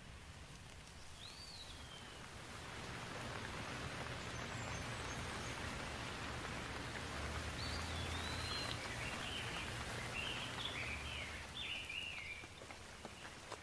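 Steady rain falling, growing louder from about two seconds in. Birds chirp over it: one short call near the start, then a run of quick chirps in the second half.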